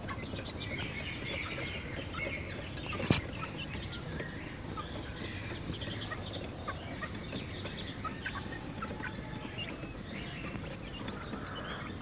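Caged hens clucking softly among themselves while pecking at scattered grain, with a single sharp click about three seconds in.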